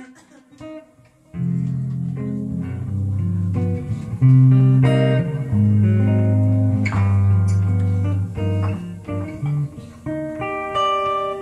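Guitar playing a slow instrumental opening, plucked notes over low bass notes, starting about a second and a half in after a few soft clicks.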